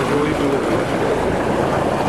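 Fishing boat under way at sea: steady engine noise mixed with water rushing along the hull.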